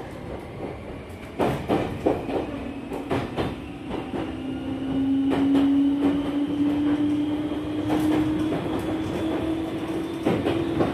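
Meitetsu 5000 series electric train running, heard from inside the car: wheels knock over rail joints every second or so while a low motor hum rises slowly in pitch from about four seconds in, getting louder. The car has the running sound of the 1000 series Panorama Super, whose traction gear it reuses.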